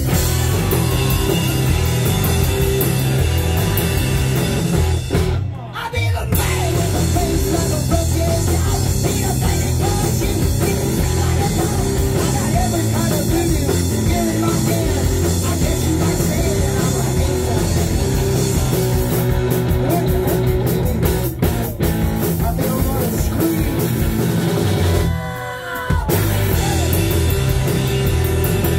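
Live rock band playing: electric guitar, bass guitar and drum kit together, loud and driving. The band drops out briefly twice, about five seconds in and again near the end, then comes straight back in.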